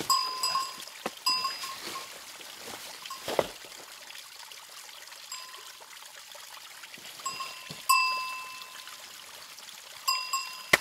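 Steel rock hammer striking stone in short groups of blows, each blow leaving a brief high metallic ring. The loudest blow comes near 8 s, and a fresh run starts near the end. A small stream trickles steadily underneath.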